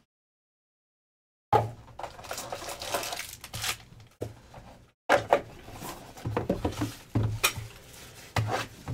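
Complete silence for about the first second and a half. Then hands handle a cardboard trading-card box and its plastic wrap: crinkling, rubbing and sliding, with several sharp taps and clacks as pieces are set down.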